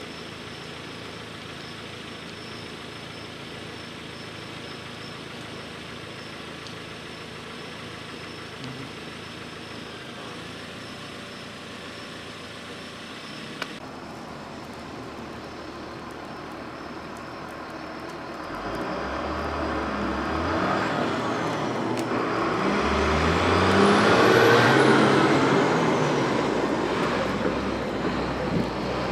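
Steady outdoor background noise, then a road vehicle approaching and driving past: its engine and tyre noise swells from about two-thirds of the way in, is loudest a few seconds before the end, and then starts to fade.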